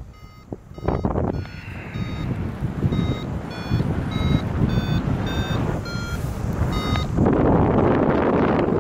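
Paragliding variometer beeping about twice a second, the pitch of the beeps shifting up and down, the audio signal that the glider is in rising air. Wind rushes over the microphone throughout and gets loudest near the end, after the beeping stops.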